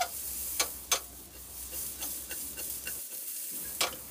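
Cubed ridge gourd sizzling in hot oil in a nonstick frying pan, a steady high hiss, with three sharp clicks of a spatula against the pan as the pieces are stirred.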